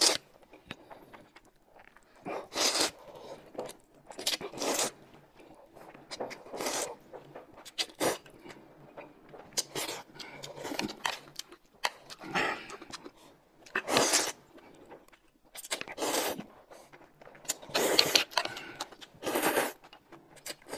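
Close-up eating sounds: noodles slurped and spoonfuls of corn soup sipped. About a dozen short slurps come one every second or two.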